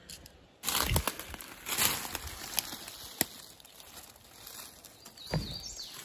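Close, loud rustling and crunching with several sharp snaps, starting suddenly just under a second in and flaring again briefly near the end.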